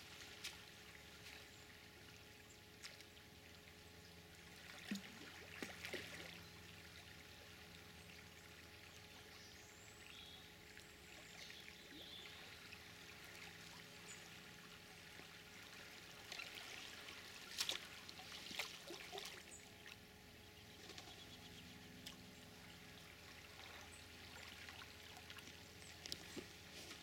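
Near silence at a river: faint running water, with a few soft clicks and knocks scattered through it, the clearest about five seconds in and again a little past the middle.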